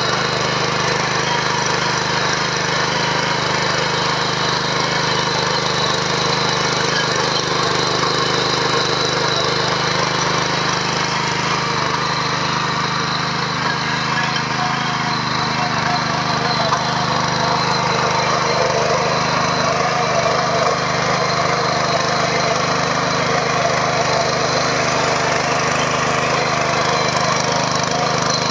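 Petrol power weeder (mini power tiller) engine running steadily under load, with its rotary tines churning through dry, clumpy soil.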